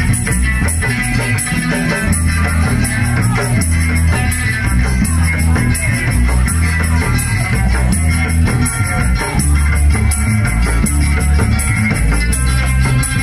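Live Lampung orkes gambus band playing: plucked strings over a heavy bass line and a steady percussion beat. It is loud and was recorded on an old phone.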